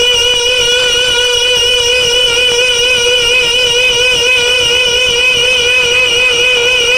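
A boy's unaccompanied naat singing: one long sustained note held without a break, with a slow, even vibrato.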